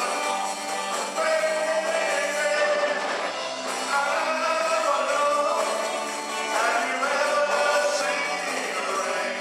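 Live rock-and-roll band: a man singing lead over electric guitars and a drum kit, with long held sung notes.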